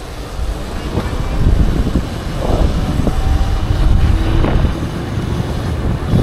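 Wind buffeting the microphone of a camera carried on a moving electric unicycle, a steady low rumble that grows stronger after the first second.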